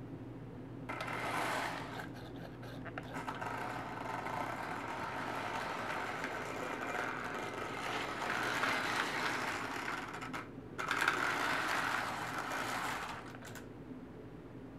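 Vintage Lionel electric toy train running on metal track: motor whirring and wheels clattering. It grows louder and softer, dips briefly about two-thirds of the way through, then comes back louder, over a steady low hum.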